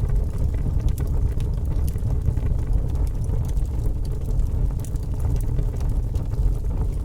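Fire crackling: a steady low roar with frequent small pops and snaps scattered throughout.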